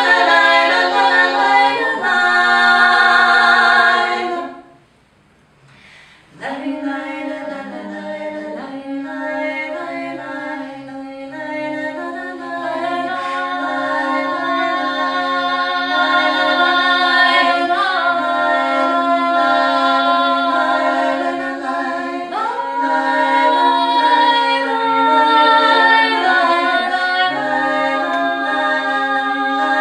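Three women's voices singing a cappella in three-part harmony. The singing breaks off briefly about four seconds in, then the voices come back in together.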